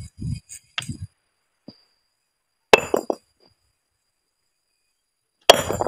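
Hand hammer striking a large stone block twice, about three seconds apart, each a sharp clinking blow with a short ring. A few soft low knocks come in the first second.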